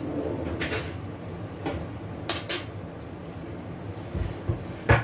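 Kitchenware handled: scattered knocks and clinks, two sharp clinks midway and a couple of knocks near the end, over a steady low rumble.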